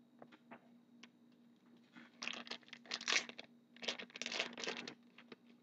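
Plastic wrapper of a trading card pack crinkling and tearing as it is opened by hand, in two bursts about two and four seconds in, after a few light clicks.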